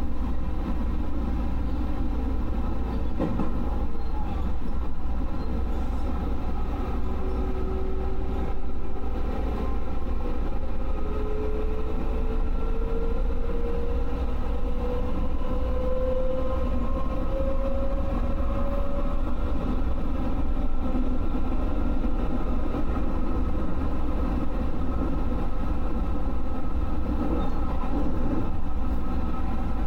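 JR West 221 series electric train running on the track, with a steady low rumble of wheels on rail. A motor and gear whine rises steadily in pitch from about a quarter of the way in to past the middle as the train picks up speed.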